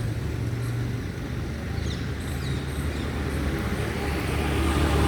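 A motor vehicle on the road with a steady low engine hum, growing louder near the end as it approaches. A few short bird chirps come about two seconds in.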